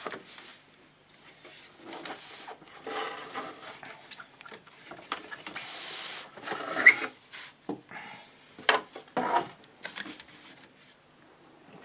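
Metal radio chassis being slid and dragged out of its wooden cabinet, scraping and rubbing against the wood in uneven stretches, with several sharp knocks as it is handled, the loudest about seven seconds in.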